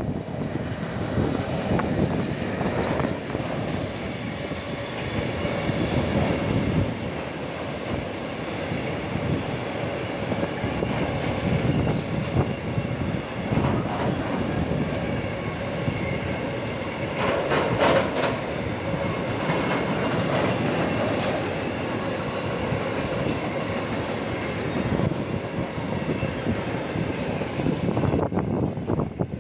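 Freight train of tank wagons rolling past, the wheels clattering over the rail joints in a steady, continuous rumble. The sound drops away at the very end as the last wagons go by.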